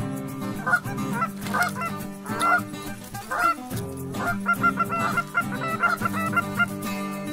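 Geese honking: many short, overlapping calls from about a second in, coming thicker and faster in the second half, over steady background music.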